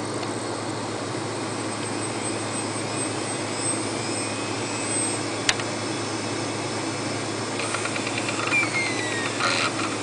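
Steady hum of the computer's fan and power supply, with a faint rising whine as the freshly repaired hard drive spins up. One sharp click about halfway, then a run of quick ticking near the end as the drive's heads move.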